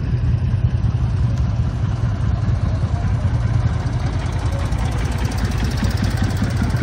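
Diesel engine of a vintage tractor idling close by: a steady low, evenly pulsing run.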